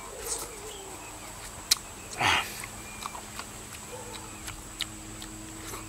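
Mouth clicks and lip smacks of a man eating ripe jackfruit pods, with a sharp click and then a loud short cry falling steeply in pitch about two seconds in. A faint steady low hum follows.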